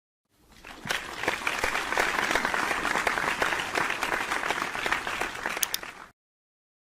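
Crowd applause: many hands clapping, swelling in over the first second, holding steady, then cutting off abruptly about six seconds in, as when a sound-effect preview stops.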